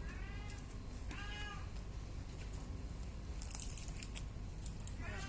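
Newborn kitten mewing: three short, high-pitched mews, one at the start, one about a second in and one near the end.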